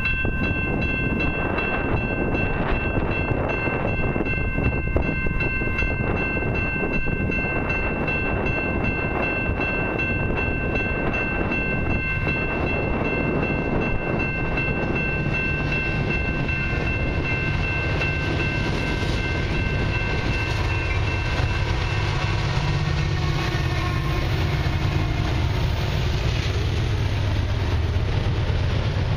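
Level-crossing warning bell ringing steadily as a freight train approaches. Over the second half the rumble of the passing diesel locomotives and the rolling autorack and tank cars grows, while the bell fades out near the end.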